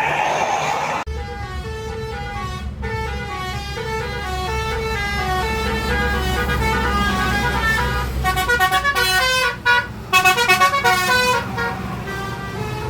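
A bus's telolet horn playing a tune of stepping multi-tone notes, starting about a second in and breaking into quick chopped toots near the end, over the bus engine running.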